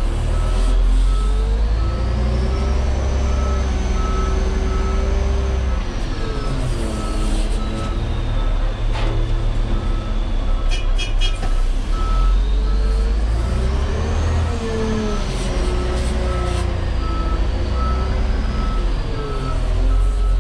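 LGMG CMT96 off-highway dump truck reversing: its back-up alarm beeps at an even, steady rate over the running diesel engine. The engine revs rise and fall twice, once about two seconds in and again past the middle.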